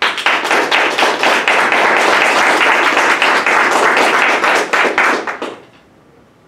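Small audience applauding, a dense patter of many hands clapping that fades out about five and a half seconds in.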